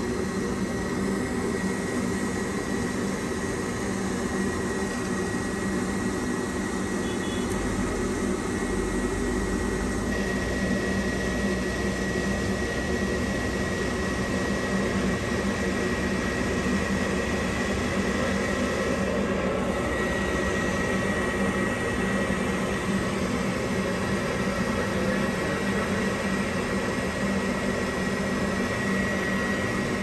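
Weil-McLain cast-iron steam boiler firing steadily on its power burner while making steam: an even burner-blower hum with a constant high whine.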